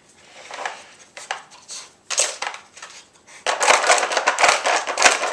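Plastic Dog Twister puzzle toy clattering and scraping on a tile floor as a puppy works its chambers to get at the kibble: scattered knocks at first, then a busy run of clatter from about three and a half seconds in.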